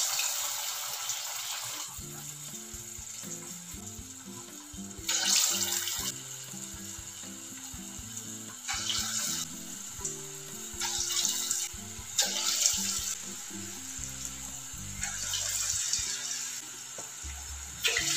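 Curry-leaf pakoda batter deep-frying in hot oil, a steady sizzle that swells several times as fresh balls of batter are dropped in. Soft background music plays underneath.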